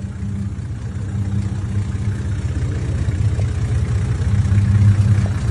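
A four-wheel drive's engine idling, heard through its exhaust as a steady low hum that grows louder toward the end.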